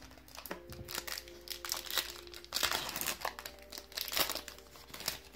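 Foil wrapper of a Pokémon trading card booster pack crinkling as it is handled and opened by hand, in a run of irregular crackles that is densest a little past halfway.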